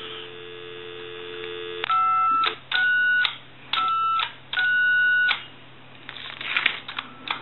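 Telephone dial tone that breaks off about two seconds in, followed by four touch-tone keypad beeps of about half a second each from an original Mickey Mouse telephone's manual keypad. The keypad's 5 key does not create the proper tone frequency, which the owner puts down to its tunable coils being out of tune.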